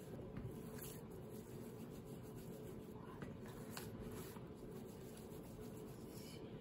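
Faint soft squishing of raw ground beef being rolled into balls by hand, over a low steady hum.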